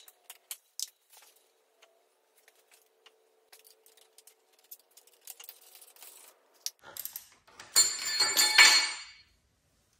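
Steel hand tools clinking lightly against the dozer's steering-clutch housing, then about eight seconds in a loud metallic clatter with ringing lasting over a second.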